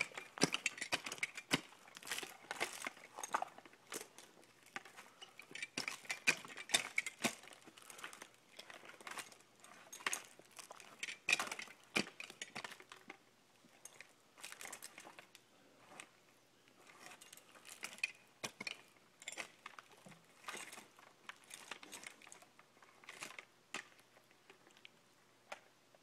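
Climbing spurs biting into Douglas fir bark as a climber steps up the trunk, with irregular crunches, clicks and knocks. These thin out near the end as he climbs higher.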